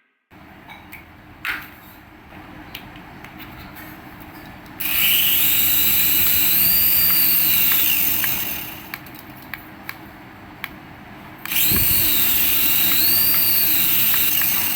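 Battery-powered toy vehicle playing its electronic whirring engine sound effect twice, each about three and a half seconds long, with a pitch that rises and falls the same way both times. Small clicks of handling fall in the quieter gaps.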